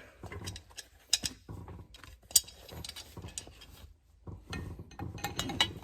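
Hand tools and metal parts clicking and clinking as a Hurst short shifter handle is bolted onto a four-speed shifter, with a few sharper clicks about one and two and a half seconds in and a quicker run of clicks near the end.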